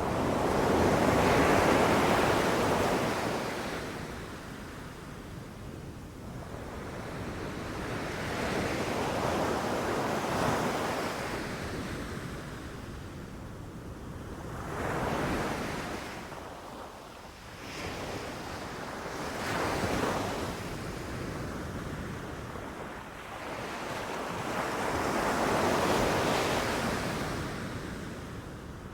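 Ocean surf breaking and washing up on a beach, one wave after another: about five swells of rushing water that build and fade, the loudest about two seconds in and another near the end, over a steady low rumble.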